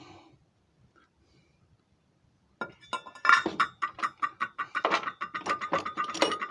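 Small metal lathe tools and parts clinking and knocking against each other as they are rummaged through, with a ringing metallic note hanging on after the strikes. It starts about two and a half seconds in, after a near-silent pause.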